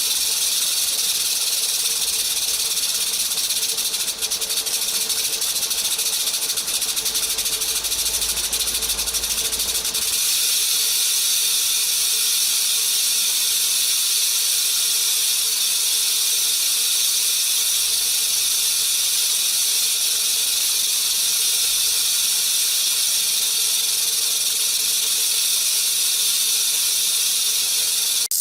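Rattlesnake shaking its tail rattle in a continuous, steady buzzing hiss, the warning it gives when threatened.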